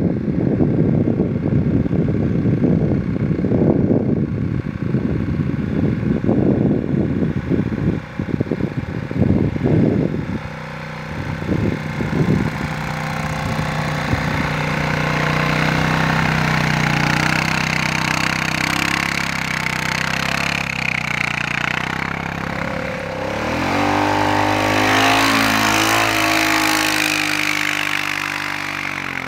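Honda Rubicon 520 ATV's single-cylinder engine running as it ploughs through deep snow on Camso X4S rubber tracks, coming closer; its pitch rises and falls as it passes close by about three-quarters of the way through, then it moves away. Gusts of wind buffet the microphone for roughly the first third.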